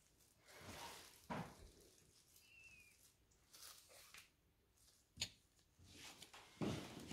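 Faint rustling and handling noises, with a brief falling high chirp near three seconds and a sharp click about five seconds in.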